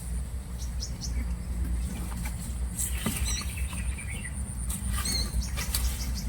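Birds giving short high chirps a couple of times over a steady low rumble, with scattered light clicks and patter.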